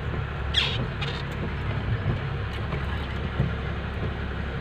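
A car's engine and road rumble, heard from inside the car, steady and low. There are two brief hissy noises about half a second and a second in.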